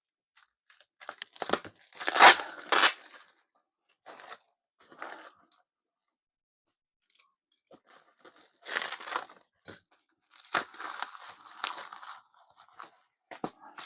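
Packaging being torn open and crinkled by hand while a slip-on motorcycle exhaust is unwrapped, in several short rustling, crunching bursts with pauses between them.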